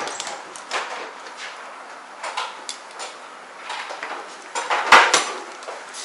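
Scattered small clicks, snips and rustles of haircutting tools being handled at the client's head, with two sharp clicks close together about five seconds in.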